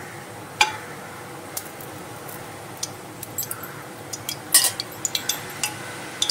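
Scattered sharp metallic ticks and clinks at a kadhai of oil heating up, over a steady low hiss. The loudest comes about half a second in, with a cluster of them about four and a half seconds in.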